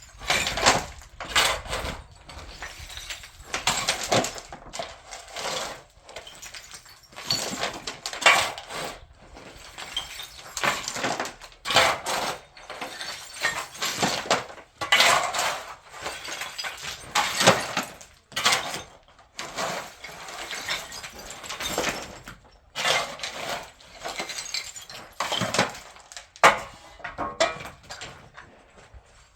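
Irregular knocks, clinks and short scrapes of hard objects being handled and struck, some of them sharp.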